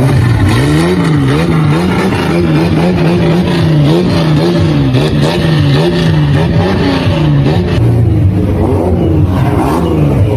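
Turbocharged Chevrolet Caravan engine revved hard over and over, its loud note dipping and climbing again about once a second, settling lower near the end.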